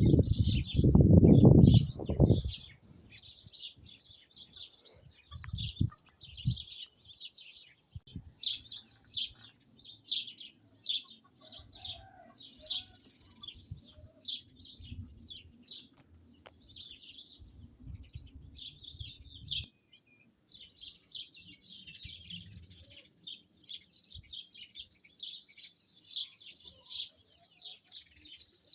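Small songbirds chirping and twittering rapidly and continuously. Wind buffets the microphone in low rumbles, strongest in the first couple of seconds.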